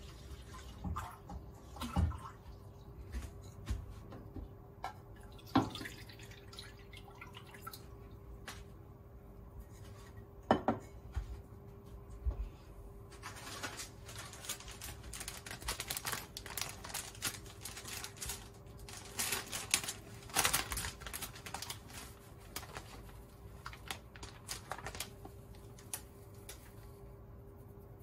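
Irregular small clicks and knocks, with a denser run of light ticking in the middle, over a faint steady hum.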